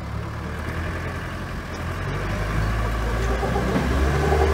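Safari vehicle's engine running steadily and growing louder. A steady higher-pitched tone joins about three seconds in.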